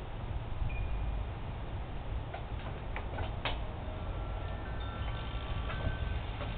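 Several clear ringing tones at different pitches, starting one after another, with a few short clicks before them, typical of wind chimes. They ring over a steady low rumble.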